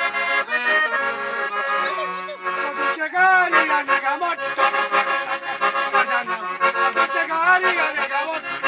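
Accordion playing a tune over held chords.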